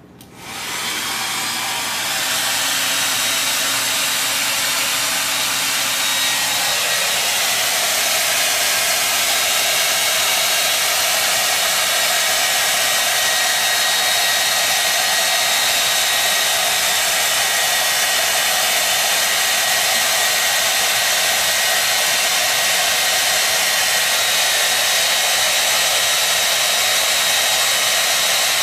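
Handheld electric hair dryer starting abruptly and then running steadily: a loud, even rush of blown air with a thin high whine from its motor. Its sound shifts slightly about six or seven seconds in, then holds steady.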